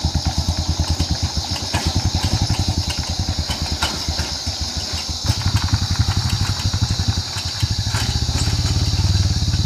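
Small motorbike engine chugging at low revs as it is ridden slowly along a rough dirt track, its firing pulses distinct and even. A steady high hiss runs over it.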